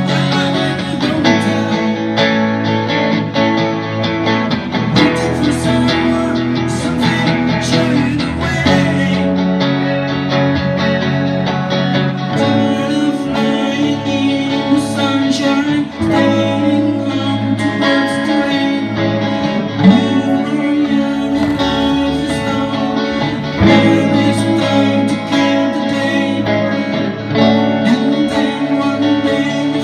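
Song played on acoustic guitar, strummed, with singing in places.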